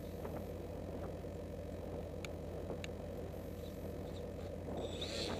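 Wind buffeting the microphone on a windy day: a steady low rumble, with a couple of faint clicks about two and three seconds in.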